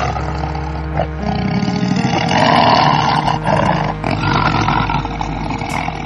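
Male lion roaring: a long, rough roar that swells and eases over several seconds.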